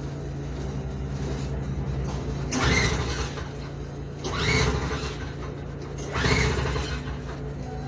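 Toro CCR2450 two-stroke snowblower engine being pull-started on choke: three pulls of the recoil starter about one and a half to two seconds apart, each a short whirring spin that rises in pitch, and the engine does not fire — a no-start, traced to a fuel problem. A steady low hum sits underneath.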